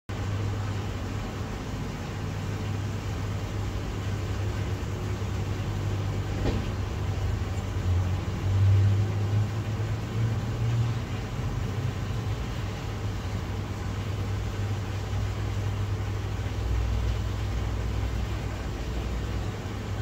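Steady low rumble of a koi pond's waterfall plunging into the water, heard through an underwater camera, swelling briefly about nine seconds in, with one faint click about six and a half seconds in.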